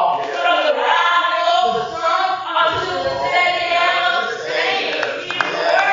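A woman singing through a microphone, with other voices singing along in a group.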